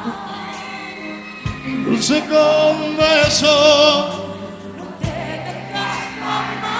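A live pop ballad: a male lead voice holds a long, wavering note from about two to four seconds in, over band accompaniment with sung backing vocals.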